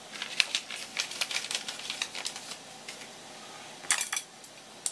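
A sheet of paper crinkling and ticking in the hand for about two and a half seconds as chopped sansho is tipped off it, then a short cluster of clicks near the end as fingers touch a small ceramic dish.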